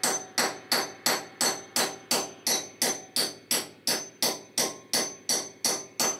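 Hammer blows on an M12 through bolt (concrete anchor), tapping it into a drilled hole in a concrete floor: a steady run of sharp strikes, about three a second, each with a short metallic ring.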